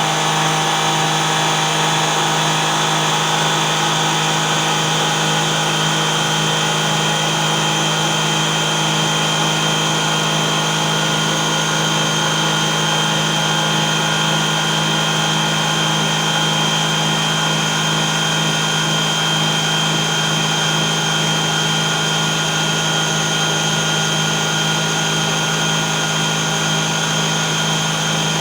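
Homemade table saw driven by two 12 V 775 DC motors running steadily, a constant motor hum with a high whine.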